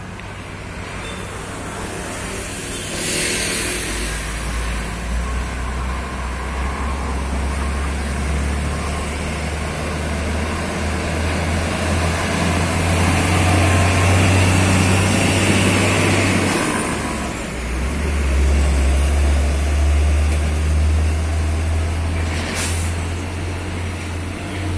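Heavy trucks' diesel engines running and passing. The low drone swells to its loudest about halfway through, dips briefly, then rises again. Two short hisses come through, one a few seconds in and one near the end.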